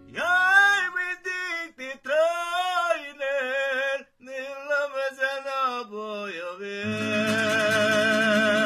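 A man singing a slow hallgató-style song in long, ornamented phrases that bend in pitch, his voice alone at first. About seven seconds in an accompaniment comes in beneath a long held note sung with a wide vibrato.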